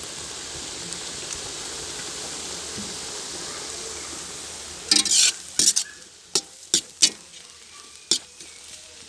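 Vegetables sizzling steadily in a hot pan, with soy sauce and chilli sauce just added. About five seconds in, a spatula stirs and scrapes the pan with several sharp clacks, and the sizzle dies down.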